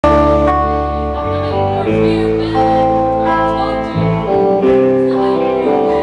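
Live country-rock band playing an instrumental passage: guitars and bass under a lead line of held, sliding notes that change about every half second.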